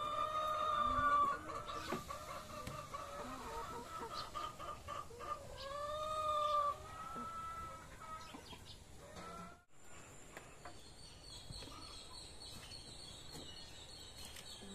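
Brown laying hens in their nest boxes clucking, with a long drawn-out call near the start and another about six seconds in. The hen calls stop about two-thirds through, leaving faint high steady tones.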